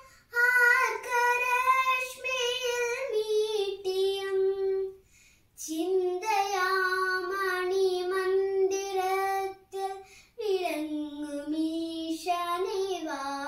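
A young girl singing a slow Malayalam song solo and unaccompanied, holding long notes, with two brief pauses for breath.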